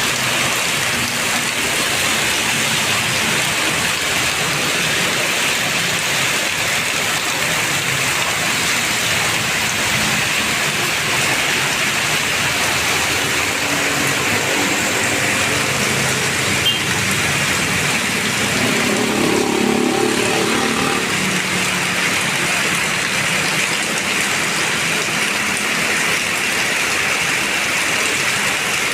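Heavy rain falling steadily on surfaces, a dense, even hiss. Around the middle, a passing motor vehicle's engine rises and fades under the rain.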